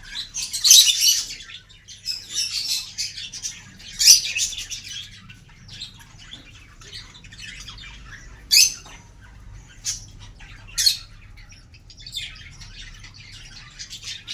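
Small pet parrots chattering and squawking. Dense high-pitched bursts come in the first few seconds, then a few sharp single calls, then chatter again near the end.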